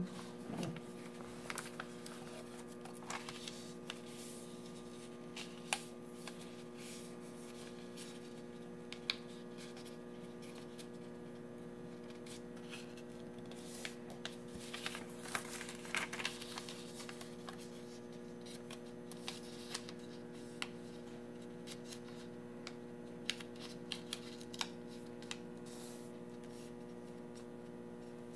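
Faint rustling, creasing and tapping of colored origami paper being folded and pressed by hand, in scattered short clusters that are busiest around the middle. Under it runs a steady low electrical hum.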